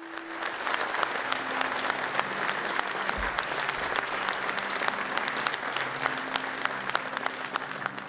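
Audience applauding: many hands clapping in a dense, steady patter that builds up within the first half second.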